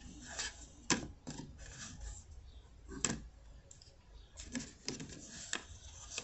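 Tarot cards being handled on a table: scattered light clicks and rustles, about eight of them, irregularly spaced.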